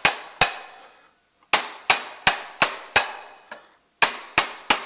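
Rubber mallet striking the back of an armorer's hammer whose fiberglass face rests against the M60 machine gun's rear sight: about ten sharp knocks, about three a second, with a short pause about a second in. The blows drive the rear sight base sideways out of its slot in the trunnion.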